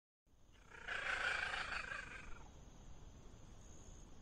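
Leopard cat calling: one drawn-out call starting about a second in and lasting about a second and a half.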